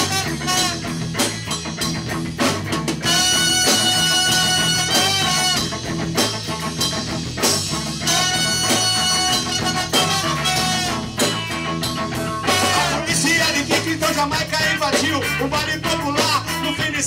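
Live rock band playing an instrumental passage: electric guitar, bass guitar and drum kit, with trumpet notes over the top.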